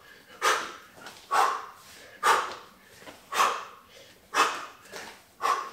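A man's sharp, forceful exhales, about one a second, in time with his spins of a Bulgarian bag around his head.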